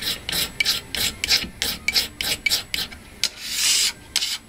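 A steel blade scraping shavings off a Coleman magnesium fire-starter bar: quick, short rasping strokes at about four a second, with one longer stroke about three and a half seconds in.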